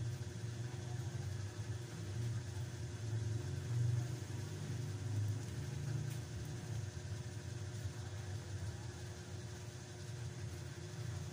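A steady low mechanical rumble, like an engine running.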